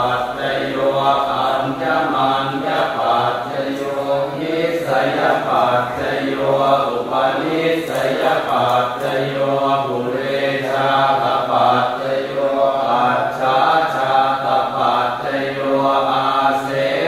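Thai Buddhist chanting (suat mon) in a temple's routine chanting service: voices reciting prayers in a steady, unbroken chant.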